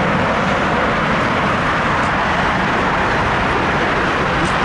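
Steady jet noise from an Airbus A380's four Rolls-Royce Trent 900 turbofans at takeoff thrust as the airliner climbs out after takeoff.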